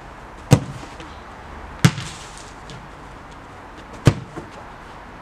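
Three sharp thuds of a football being struck: kicks and ball impacts, the last a full-power kick about four seconds in.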